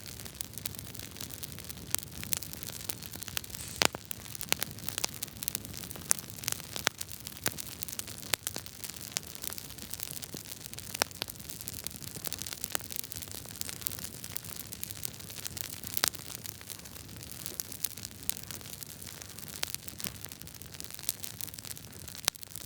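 Wood fire crackling in a fireplace: a steady hiss with many sharp pops and snaps of irregular timing and loudness.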